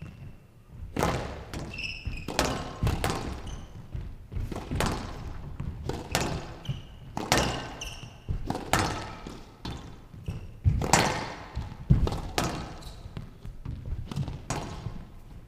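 Squash rally: the ball cracking off rackets and slamming into the walls of a glass court about once or twice a second, starting about a second in, mixed with short high squeaks of court shoes on the floor. This is a game-ball rally that wins the game 11-3.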